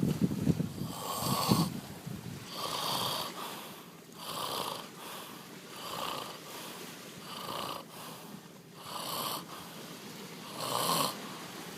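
A man snoring, one snore about every second and a half.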